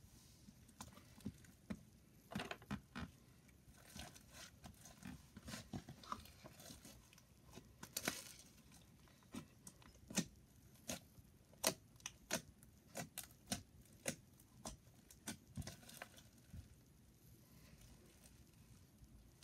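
Slime being stretched and kneaded by hand, giving faint, irregular small clicks and pops.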